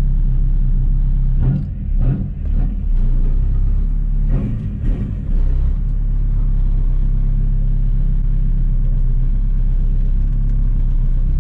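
Volkswagen Polo TDI diesel engine idling steadily, freshly reassembled with its refitted injectors. A few short knocks and rattles sound over it in the first half.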